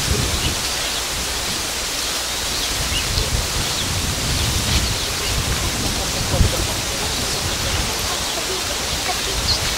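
Steady, even outdoor noise like a hiss of wind or rain, with a low thump about six and a half seconds in and a few faint high chirps.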